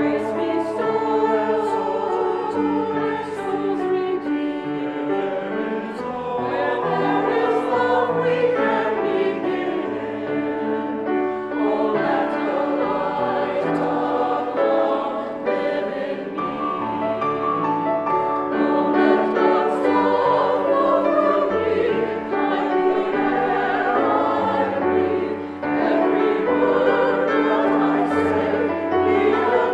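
Choral music: a choir singing held chords over a slowly moving bass line.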